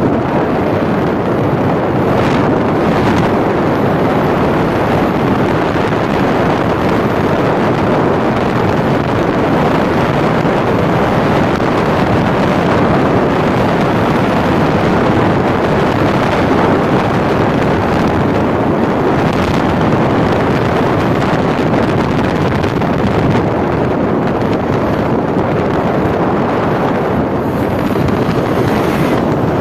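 Steady road, engine and wind noise of a car driving along a highway, heard from inside the cabin, with a few brief swells of hiss.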